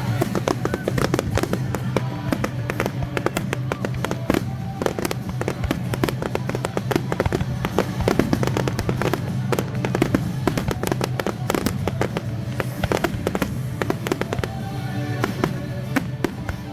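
Fireworks display: many sharp bangs and crackles going off in rapid succession throughout, with music playing underneath.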